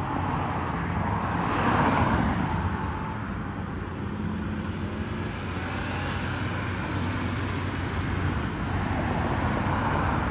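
Road traffic: cars passing on the street, one swelling past about two seconds in and another near the end, over a steady low hum.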